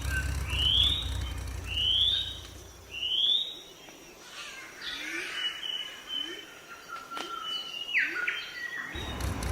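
A bird chirping: a run of short rising chirps, about one every 0.7 seconds, then fainter scattered calls. Under the first few chirps runs a low hum that cuts off about three seconds in.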